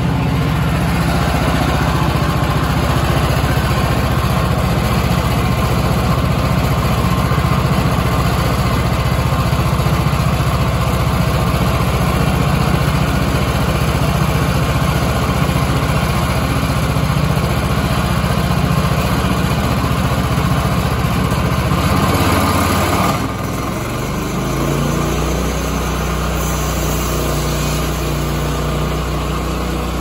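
Rima RS31G bandsaw mill's Kohler gasoline engine running steadily while the band blade cuts a 2-inch slab off a maple log. A little over 20 seconds in, the sound drops slightly and the engine note changes.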